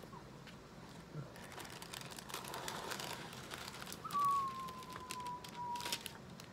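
Thin clear plastic film rustling and crinkling as it is handled. About four seconds in, a single thin whistle-like tone starts and slides slowly down in pitch for about two seconds.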